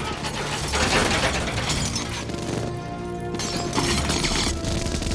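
Minigun's rotating barrels spinning with a fast mechanical rattle, between bursts of gunfire, with the film score underneath.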